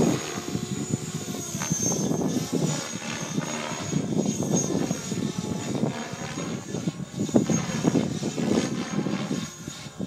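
Align T-Rex 550 electric RC helicopter flying overhead: the rotor blades whoosh and the motor gives a high whine. The pitch rises and falls and the loudness swells as it manoeuvres.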